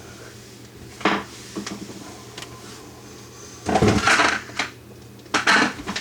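Irregular knocks, clunks and rattles of hands working a dishwasher's drain hose and fittings into place, with a longer scraping rattle about two-thirds of the way through.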